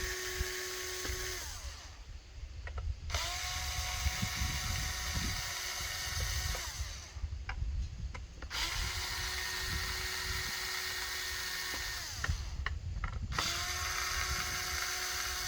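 Power driver whining as it backs out Phillips-head screws from a shotgun's housing. It runs in three spells of several seconds each, with short pauses and a few clicks between them.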